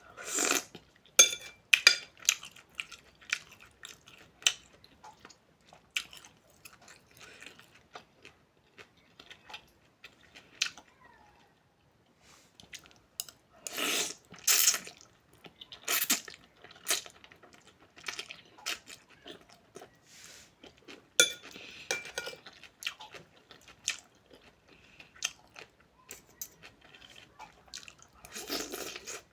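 A person eating close to the microphone: chewing and crunching food in irregular bursts, with spoon and bowl clinking now and then.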